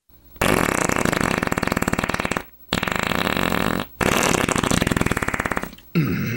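Three long, loud, rapidly fluttering farts in quick succession, with short breaks between them, followed by a brief vocal sound near the end.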